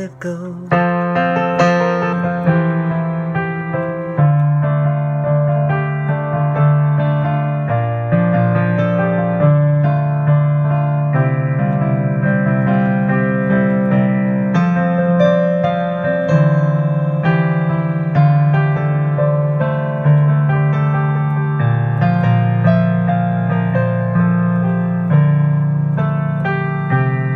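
Piano playing a slow piece: chords struck over low bass notes and left to ring, changing every second or two.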